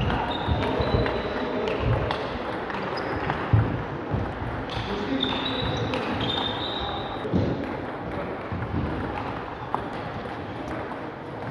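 A table tennis ball clicking against rackets and the table during a rally, with the hall's background of other games and voices.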